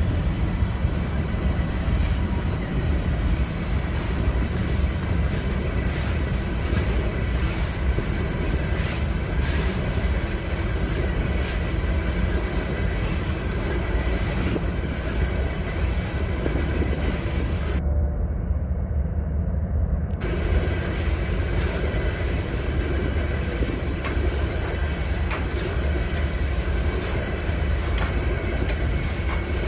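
Steady low rumble of a large rail yard, with diesel locomotives and freight cars working, and scattered clanks a few seconds in. The higher part of the sound drops out for about two seconds a little past halfway.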